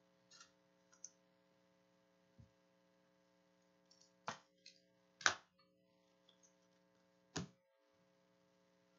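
Trading cards being handled and set down on a table: a few soft taps and thunks, the loudest about five seconds in, over a faint steady hum.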